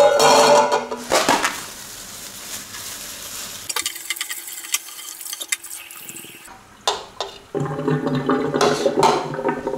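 Tap water running into an enamel bowl as anchovies are rinsed by hand, with small clinks and clicks against the bowl. Near the end the bowl is tipped and the water splashes out into the sink.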